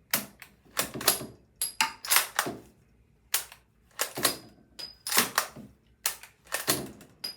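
Bolt-action rifle chambered in 8mm Mauser being worked again and again: sharp metallic clicks and clacks as the bolt is opened, drawn back, run forward and locked, cycling dummy rounds from the magazine and ejecting them. The rounds feed, lock up and eject cleanly, a sign the loaded length suits the gun.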